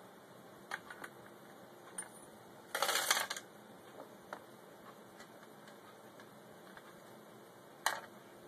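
Cat feeder clattering: a few light clicks, a short rattling clatter about three seconds in, and one sharp click near the end.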